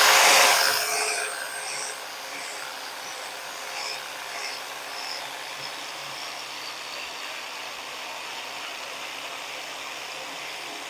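Porter-Cable 4.5-inch angle grinder with a wire wheel scouring rust off a steel plate. The wire wheel grates loudly against the steel for the first second or so, then settles into a steadier, quieter motor whine with the wires rasping on the metal.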